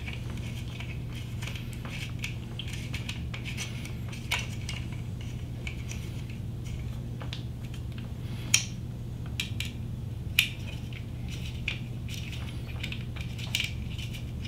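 Light metallic ticks and clicks of a hand tool turning the two small screws that hold the fan duct cover on a 3D printer extruder, with a few sharper clicks standing out, over a steady low hum.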